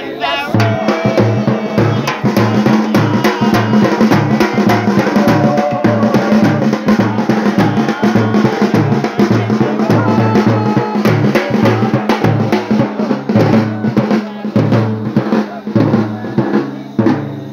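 Loud music with a steady drum-kit beat and a deep, stepping bass line.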